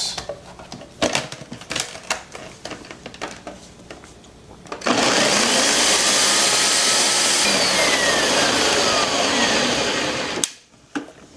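Nutri Ninja countertop blender: a few clicks and knocks as the lid is pressed on, then about five seconds in the motor starts and runs steadily for about five and a half seconds, blending young coconut meat with coconut water, before cutting off suddenly.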